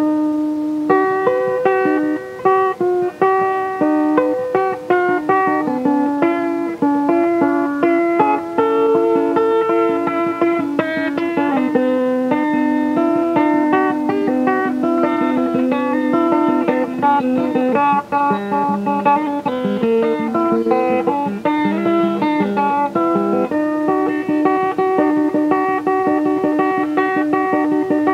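Guitar picking a quick melodic line of single notes that changes pitch several times a second, cutting in abruptly.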